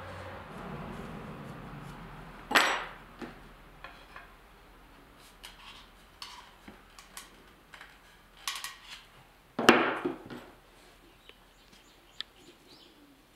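Wooden dowels and hand tools clattering as they are handled and set down on a workbench: two sharp knocks, about two and a half and nine and a half seconds in, with lighter clicks and taps between.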